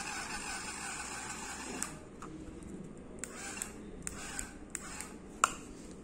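Small toy RC-car drive motor whirring steadily for about the first two seconds as the Lego plane drives across the floor, then a string of sharp clicks and taps, the loudest near the end.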